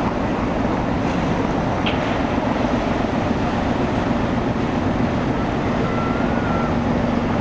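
Car ferry's diesel engines running steadily under load while it manoeuvres to berth, a continuous rumble with a low hum.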